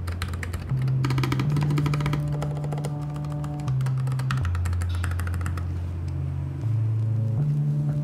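Background music with a bass line whose notes change every second or two.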